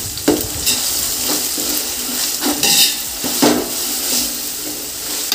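Ginger-garlic paste frying in oil with onions and mint in a large biryani pot, sizzling steadily, while a spoon stirs and scrapes against the pot several times.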